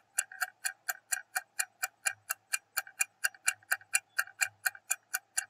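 Clock-ticking sound effect of a quiz countdown timer, even sharp ticks at about five a second.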